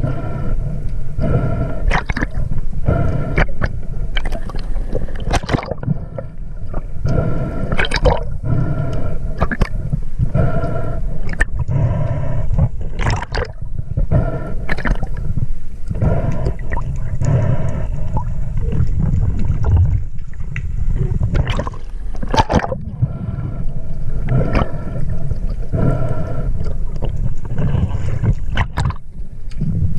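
Water gurgling and sloshing around an underwater camera, over a steady low rumble, with scattered sharp clicks.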